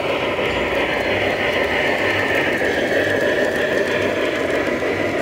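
Garden-scale model steam locomotive running on its track: a steady mechanical whir of motor and gearing, its higher tone sliding down a little in the first few seconds, with a faint low pulse about twice a second.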